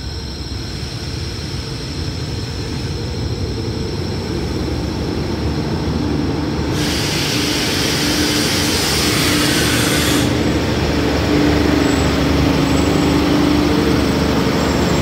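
Diesel passenger train pulling into a station platform, its engine and wheel rumble growing steadily louder as it comes alongside, with a steady droning tone joining in about halfway. A hiss lasting about three seconds sounds from about seven seconds in.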